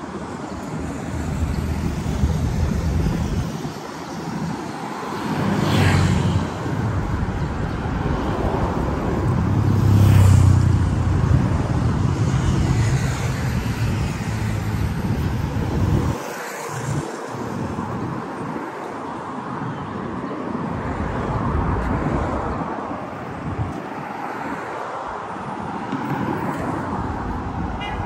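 Road traffic on a multi-lane city road: cars passing one after another with tyre and engine noise, the loudest passes about six and ten seconds in.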